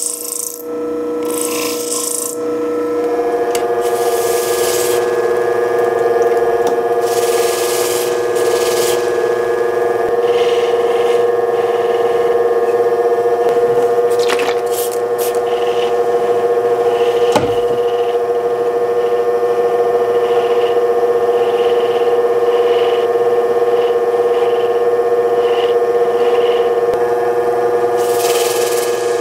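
Electric motor of a lapidary polishing wheel running with a steady whine, while the opal on its dop stick is pressed against the spinning wheel in short hissing, scraping passes, a few seconds in and again near the end.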